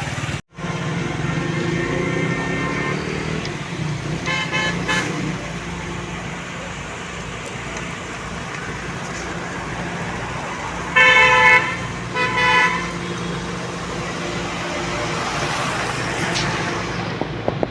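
Steady street traffic noise, with a vehicle horn honking twice in short blasts about eleven seconds in and a fainter horn blast earlier. The sound cuts out for a moment just after the start.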